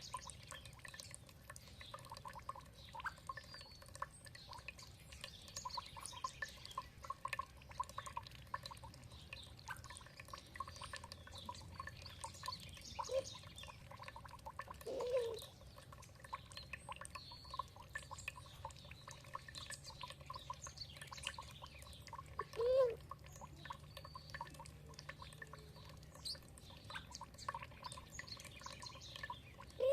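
Water trickling and dripping, with many short, scattered bird chirps over it. A few louder, lower calls stand out about halfway through and again later.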